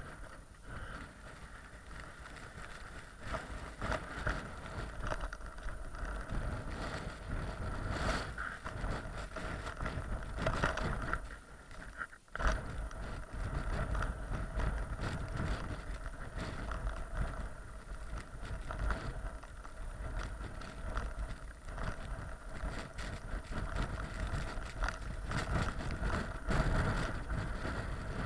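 Strong blizzard wind buffeting the microphone: a heavy, uneven low rumble rising and falling with the gusts, with a steady whistle above it and a brief lull about twelve seconds in.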